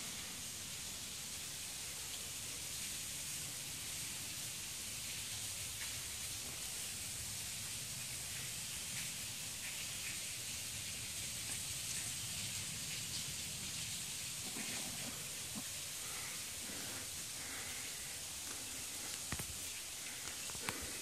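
Steady rushing hiss of a waterfall pouring into a creek pool, with a couple of sharp clicks near the end.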